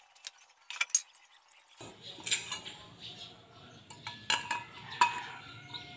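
Thin sheet-metal pieces clinking and rattling as they are handled, with several sharp metallic clinks, the loudest about five seconds in. A low steady hum comes in about two seconds in.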